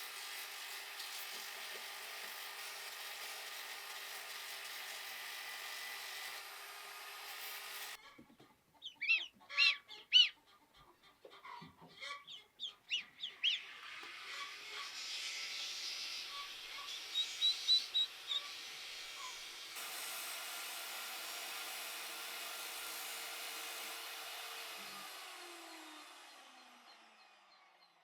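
Farm poultry calling loudly several times over a few seconds, between stretches of a steady mechanical drone with a fixed hum. The drone's pitch drops as it dies away near the end.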